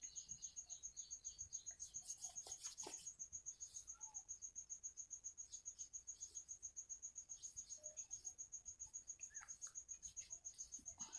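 A cricket chirping steadily: one high note repeated in a rapid, even pulse, about seven pulses a second. A few faint scratchy sounds come about two to three seconds in.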